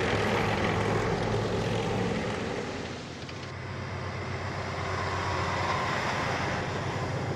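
Steady engine drone, like a propeller aircraft. Its sound changes, growing thinner in the upper range, about three and a half seconds in.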